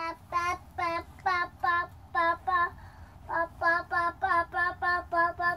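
A high child's voice singing a run of short, repeated notes, about four a second at much the same pitch, with a brief break about halfway through.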